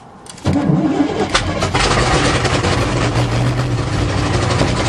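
Cold start of a 1977 GMC truck's carbureted engine: about half a second in, the starter cranks and the engine catches, then runs with a steady low note. The choke pull-off has been reset to hold more choke, and the float bowls were primed before the start.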